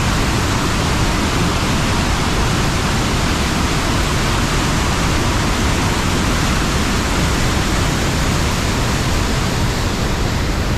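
Steady, loud rush of fast-flowing mountain water, a waterfall or rapids on the creek.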